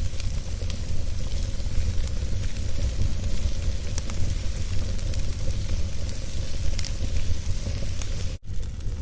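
Wood fire burning in a fire pit: a steady hiss over a low rumble, with scattered sharp crackles and pops. The sound cuts out for an instant near the end.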